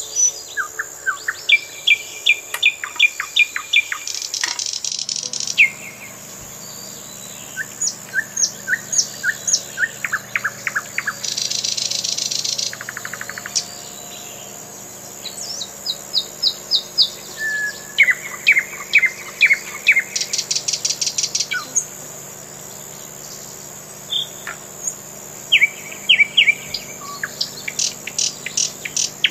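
Songbirds chirping in quick repeated series of short notes, with a few buzzy trills lasting a second or two each and a steady high whine underneath.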